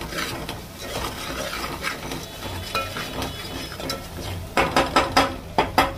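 Steel spoon stirring and scraping a thick spice masala frying in oil in a metal pot, with a soft sizzle: the masala is fried until the oil separates. Near the end the spoon knocks sharply against the pot several times in quick succession.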